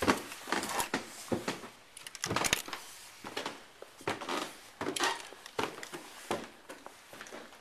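Footsteps climbing a very steep stairway: irregular knocks and scuffs about once a second, with rustling between them.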